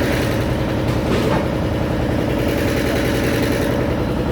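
Fishing boat's inboard engine idling steadily, an even low rumble with a fast regular pulse.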